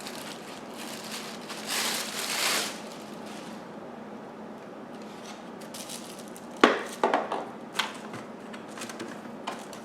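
Handling noise from plastic vacuum parts and packaging: a rustle about two seconds in, then a quick run of sharp clicks and knocks about two-thirds of the way through.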